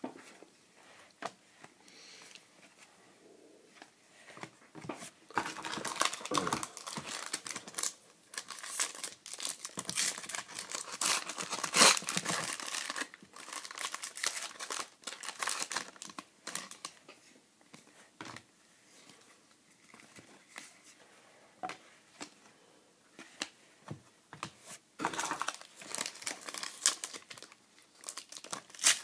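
Foil trading-card pack wrappers crinkling and tearing as the packs are ripped open by hand, in stretches of crackling with quieter gaps between.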